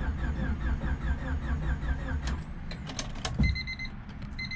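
Honda Civic D16 four-cylinder engine cranking on the starter without firing, with a quick even pulse; the engine is being spun to prime oil pressure. The cranking stops about two seconds in, a few clicks follow, and the car's warning chime starts beeping steadily near the end.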